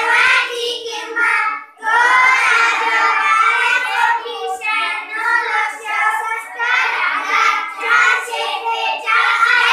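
A group of schoolchildren singing together in unison, with short pauses for breath between lines.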